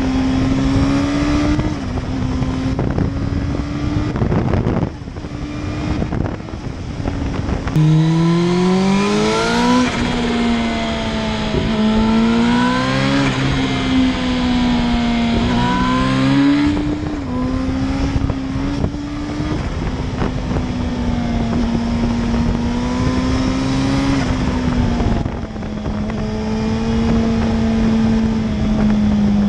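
Turbocharged Suzuki GSX-R1000 K5 inline-four being ridden: the engine note repeatedly climbs in pitch under boost, then drops when the throttle is shut. On each lift-off comes the turbo's fluttering "stutututu" of compressor surge.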